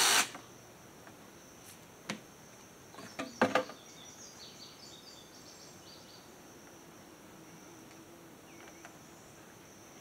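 A cordless drill driving a screw stops just after the start. A few sharp knocks and clatters of metal downspout pieces being handled follow, around two and three and a half seconds in. Under it all runs a steady high insect drone.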